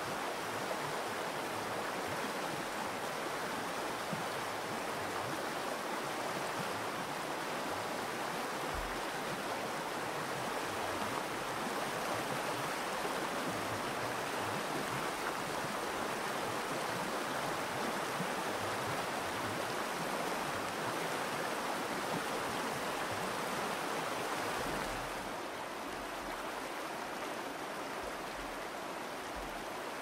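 The Virgin River rushing and babbling over rocks in shallow riffles, a steady rush of water. It becomes a little quieter about 25 seconds in, where the water runs calmer.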